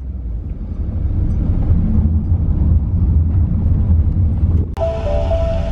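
Steady low rumble of a car driving, heard from inside the cabin: engine and road noise. About four and a half seconds in, music with sustained notes cuts in abruptly.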